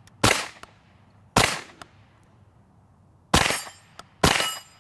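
Four semi-automatic shots from a Stribog SP9A3G 9mm delayed-blowback carbine, unevenly spaced: two about a second apart, then a pause, then two more close together near the end. A faint sharp tick follows some shots, and a metallic ringing lingers after the last two.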